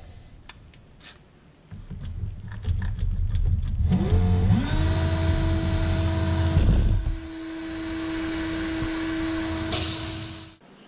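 Cordless drill spinning a steel rod held in its chuck, set up as a makeshift lathe. A few light clicks come first, from clamps and the chuck being set. About four seconds in the motor spins up with a rising whine, runs at a steady pitch and stops shortly before the end.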